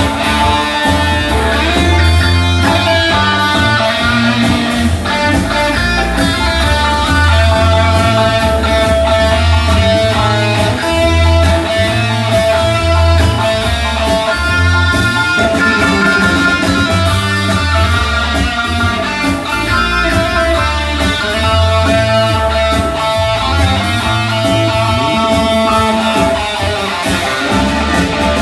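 Band playing an instrumental passage: guitar carrying the melody over bass and a steady drum beat.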